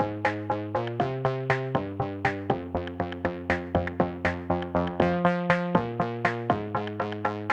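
Electronic music: a steady run of quick synth notes, about four to five a second, over held chords that change every second or so.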